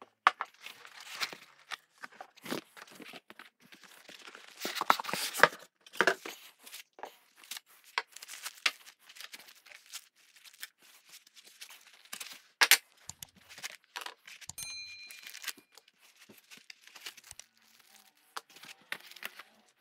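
Packaging handled during unboxing: irregular rustling and crinkling of cardboard, foam and plastic bags, with the odd sharp knock, the loudest about two-thirds of the way in, as metal parts are set down on a wooden workbench.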